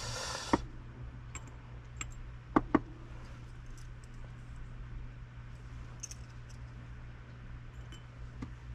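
Small metal parts of a disassembled Shimano Stella spinning reel clicking and clinking as they are picked up and set down on the workbench: a scatter of light clicks, with two sharper ones in quick succession about two and a half seconds in. A short hiss at the start and a steady low hum underneath.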